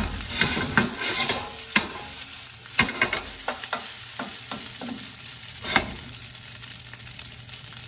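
Wooden spatula stirring fried rice in a non-stick pan, scraping and knocking irregularly against the pan, over the steady sizzle of frying. The sharpest knocks come about 3 seconds and 6 seconds in.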